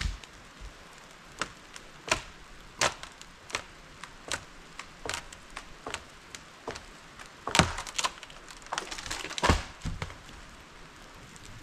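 Wood being cracked and chopped by hand: a string of sharp, irregular knocks and cracks, coming thicker and louder near the end, over the steady hiss of rain.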